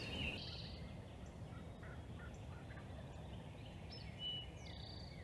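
Faint, distant wild turkeys gobbling across a field, with songbirds chirping and whistling briefly, once at the start and again about four seconds in.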